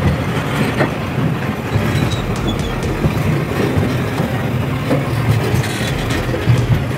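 A train running past at close range along the rail: a steady low rumble of steel wheels on the track, with scattered clicks and clacks.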